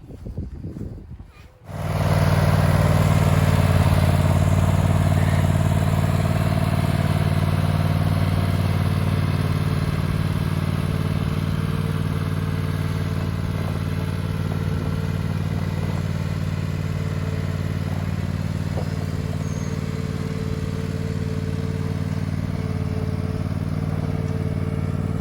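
Lawnmower engine running at a steady speed while towing a weighted board around to level the dirt. It comes in suddenly about two seconds in, after a quieter stretch.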